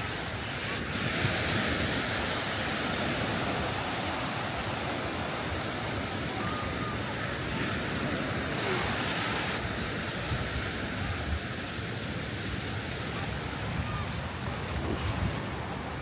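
Small waves breaking and washing up a sandy beach, a steady surf hiss, with wind buffeting the microphone.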